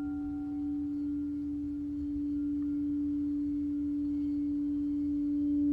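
Crystal singing bowl for the sacral chakra ringing one steady low tone. Higher overtones fade away in the first second, and a fainter higher tone comes in near the end.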